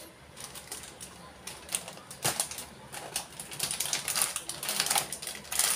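Plastic snack wrappers crinkling and rustling as packets are handled, a run of irregular crackles that grows busier after about two seconds.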